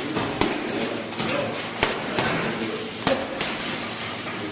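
Punches landing on heavy bags: a string of irregular thuds and smacks, a few of them sharper and louder than the rest.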